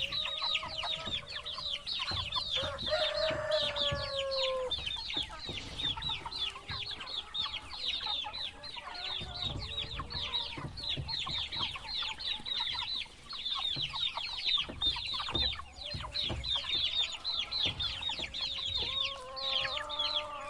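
A crowd of baby chicks chirping: a dense, steady stream of short, high, downward-sliding peeps. A lower, longer call cuts in about three seconds in and again near the end.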